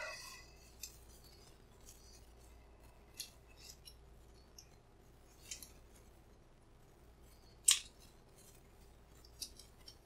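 Faint, scattered small clicks and ticks of a brass padlock cylinder being handled and turned in the fingers, with one sharper click later on.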